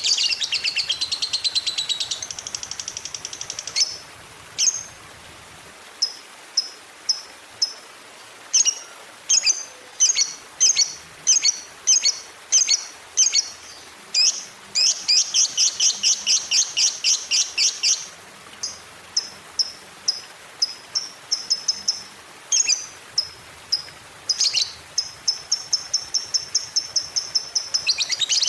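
Lovebird chattering in its long 'ngekek' trill: fast, high, rattling runs of chirps near the start, in the middle and again near the end, with strings of separate short chirps, about two a second, in between.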